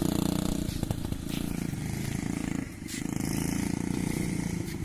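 Quad bike (ATV) engine running steadily, with a brief dip in level a little over halfway through.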